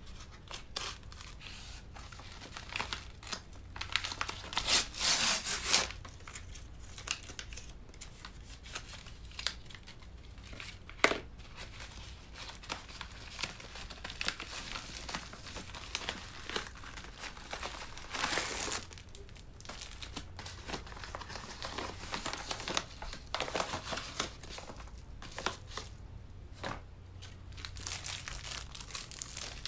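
Yellow padded paper mailer being torn open by hand in a string of rips and crinkles, then the clear plastic wrap of the case inside crinkling as it is handled. The tearing is loudest about four to six seconds in, and there is a single sharp knock about eleven seconds in.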